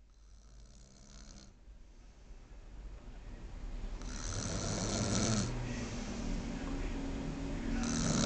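A person snoring in their sleep, each snore lasting about a second and a half. The snores grow louder: a faint one at the start, a loud one about four seconds in, and another starting near the end.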